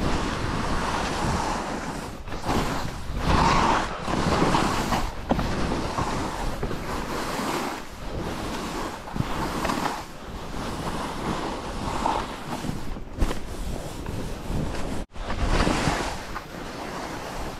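Skis sliding and scraping over soft spring snow through a series of turns, with wind rushing over the microphone; the rush swells and fades with each turn and drops out briefly near the end.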